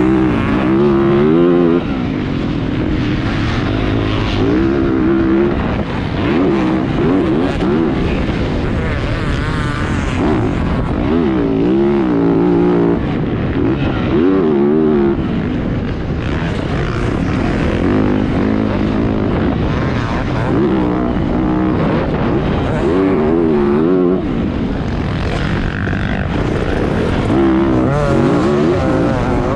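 Motocross dirt bike engine revving up and down over and over, its pitch rising and falling every few seconds as the bike accelerates and backs off around the track.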